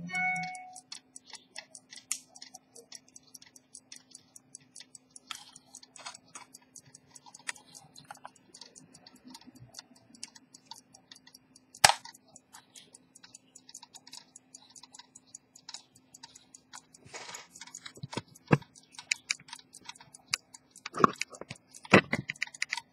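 Jump-seconds pocket watch movement ticking, rapid and even, with its case back open. A few louder knocks stand out, one near the middle and several near the end.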